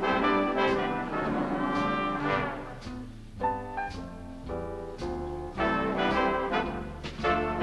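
Instrumental dance-band music, led by a brass section of trumpets and trombones playing sustained chords that change every second or so.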